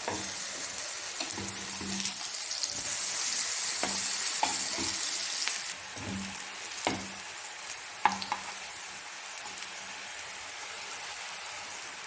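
Raw banana (plantain) slices, coated in a chilli-masala paste, sizzling in shallow oil in a frying pan. A spatula scrapes and taps against the pan now and then as the pieces are turned. The sizzle is loudest in the middle and eases after about six seconds.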